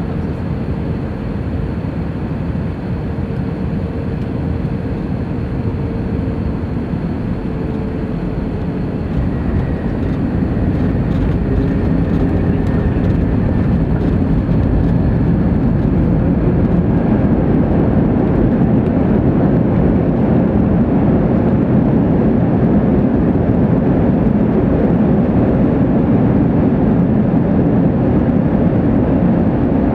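Cabin noise of an Airbus A321 landing: a steady rush of engine and airflow during the flare, then from about ten seconds in a louder, heavier roar as the jet is on the runway with its ground spoilers up, decelerating on the rollout.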